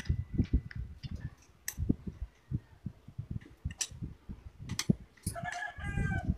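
Hand tools clicking and knocking against a Starex automatic transmission case as it is assembled: irregular sharp metal clicks with dull thuds. A short pitched call, like a chicken's, sounds about five seconds in.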